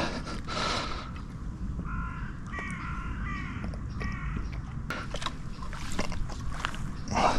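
A crow cawing in a quick run of short calls about two seconds in, over a steady low rumble, with scattered clicks later on.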